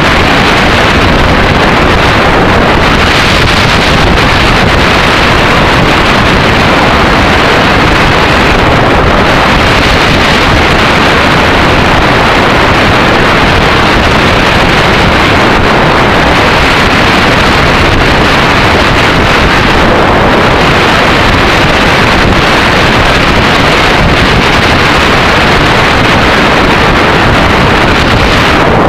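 Loud, steady wind noise over a motorcycle-mounted camera's microphone at road speed, with the Yamaha XT600E's single-cylinder engine running underneath.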